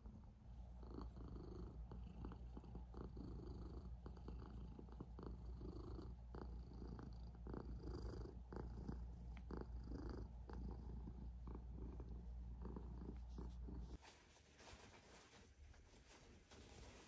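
Domestic cat purring steadily while being scratched and petted, with faint repeated scratching strokes on its fur over the purr. The purring cuts off suddenly about fourteen seconds in.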